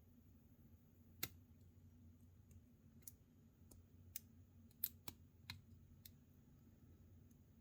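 A lock pick and tension wrench working the pin stack of a Master Lock No. 570 padlock: about eight faint, sharp metallic clicks scattered irregularly over several seconds, the loudest about five seconds in.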